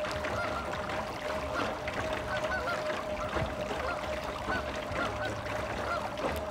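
Geese honking in short, repeated calls at irregular intervals, over a steady high-pitched hum.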